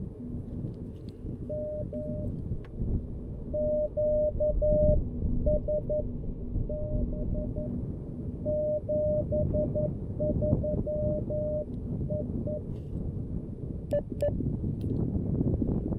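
Morse code sent as a single mid-pitched tone keyed on and off in dots and dashes from the CFT-1 CW transceiver, over a steady low rumble of noise. The keying stops about three-quarters of the way through, followed by a couple of sharp clicks.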